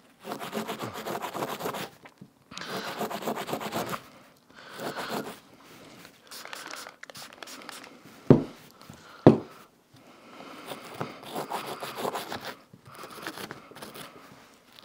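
Cleaning brush scrubbing carbon gunk off an AR-15 bolt carrier group part, in several spells of quick back-and-forth strokes with short pauses. Two sharp knocks about a second apart just past the middle.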